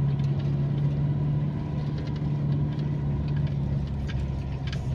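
Car engine and tyre noise heard from inside the cabin while driving, a steady low drone with a few faint ticks.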